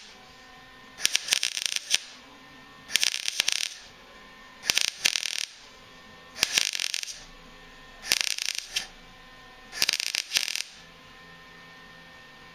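MIG welder laying short stitch welds on a steel frame repair piece: six bursts of arc crackle, each under a second long, about every 1.7 seconds.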